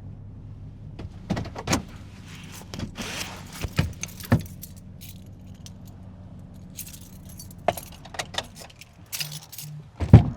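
Car keys jangling and clicking in a car's cabin over the car's steady low hum, in two spells of rattling. Near the end come two loud knocks close together.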